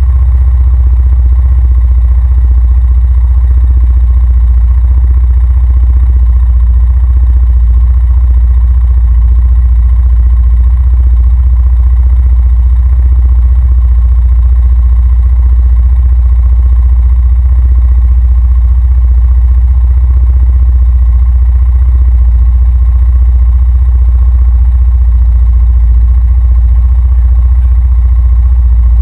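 Honda Rancher ATV engine idling, a loud, steady low rumble with a fast even pulse, picked up through the GoPro mounted on its front rack.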